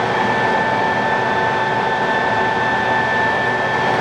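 Acer Dynamic 29 x 60G geared-head engine lathe running with its spindle turning at 53 RPM, driven by its 15 HP main motor: a steady mechanical hum with an even, high whine.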